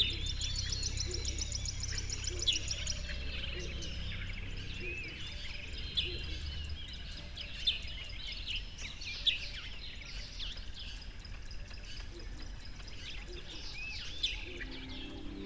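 Many songbirds chirping and singing in short, scattered calls, with a fast high trill in the first three seconds. A low steady hum sits under the first few seconds.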